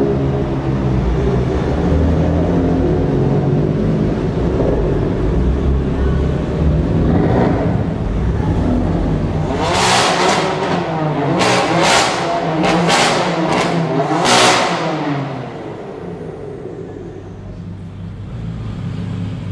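Two BMW M4s, a Hamann-tuned car and one with an Akrapovič exhaust, their twin-turbo straight-six engines running in a road tunnel. About ten seconds in, the engines are revved hard five or six times in quick succession, each a short loud blast. After that the sound settles to a lower steady drone.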